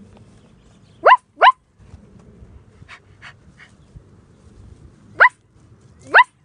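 A small dog yipping: four short, high, rising yips, two close together about a second in and two more near the end.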